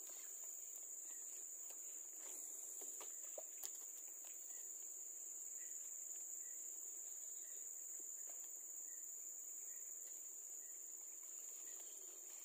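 Steady high-pitched insect drone, with a faint short chirp repeating about once a second and a few light clicks.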